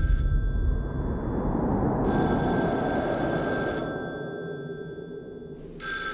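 Rotary telephone's bell ringing in rings about two seconds long with two-second gaps: one ending just at the start, one in the middle, a third starting near the end. Under it a deep low rumble fades away over the first few seconds.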